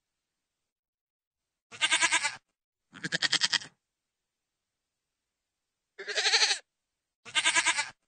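Goat bleating: four short bleats, each with a fast quavering pulse, in two pairs with dead silence between them.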